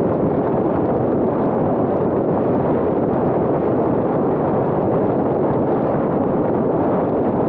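Steady rush of tyre and wind noise from a car cruising at highway speed: an even noise with no clear engine note and no changes.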